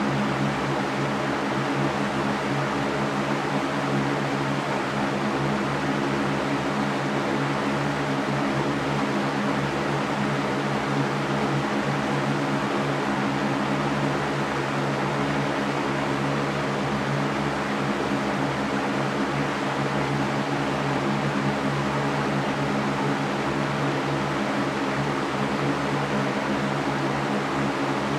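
Electric fan running steadily: an even rushing of air over a low, constant motor hum.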